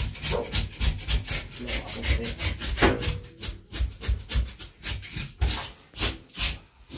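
A knife scraping and cutting into a large sturgeon in quick, rhythmic strokes, about three or four a second, as the fish is cleaned and gutted.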